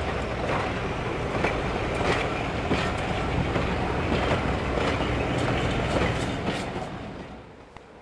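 Railway passenger coaches rolling past on jointed track, their wheels clicking over the rail joints in an uneven rhythm over a steady rumble. The sound dies away near the end as the last coach passes.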